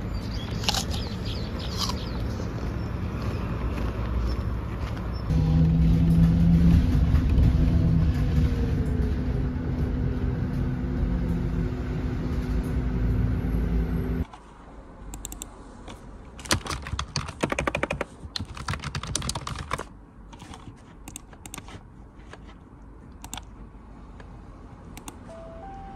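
Steady low engine and road rumble heard from inside a moving vehicle, cutting off abruptly about fourteen seconds in. Then a computer keyboard being typed on in irregular bursts of clicks.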